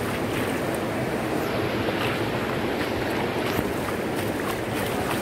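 Floodwater rushing across a street after a cloudburst: a steady rushing noise with a few faint scattered ticks.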